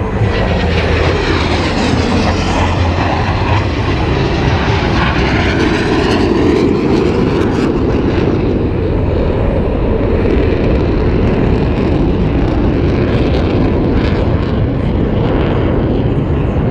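Loud, steady jet engine noise from military jets flying over the air show, with a hiss that sweeps in pitch during the first few seconds as they pass.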